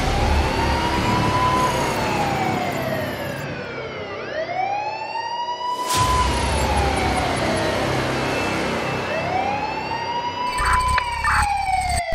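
A siren wailing slowly, three times: each wail rises quickly, then falls away slowly. A sharp hit lands about halfway through and another at the very end.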